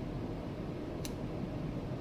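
Steady low room hum with a single light click about a second in.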